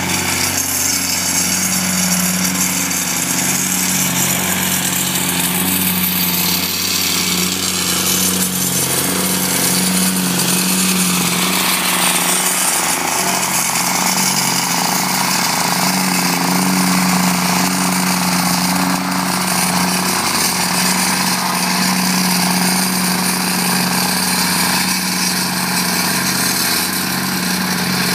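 Gas-powered vibratory plate compactor running steadily, its small engine and vibrating steel plate tamping down a bare dirt base to compact it before pavers are laid.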